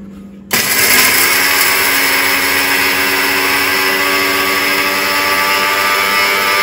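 Electric mixer grinder switched on about half a second in, spinning up and then running steadily at full speed as its steel jar dry-grinds whole spices into masala powder.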